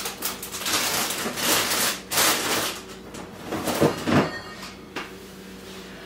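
Grocery packaging rustling and being handled as food is put away into an open freezer, a run of short crackling swishes.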